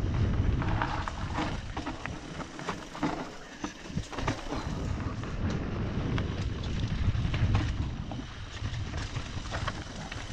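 Mountain bike descending a dirt and rock forest trail at speed: wind rumble on the helmet-camera microphone, with tyres on dirt and the bike rattling in frequent clicks and knocks over roots and stones.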